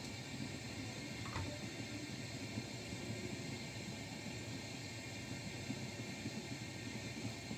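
Steady low whirring noise, as from a running fan, with one faint metallic clink about a second and a half in as the metal cake pan is set down on the wire steaming rack.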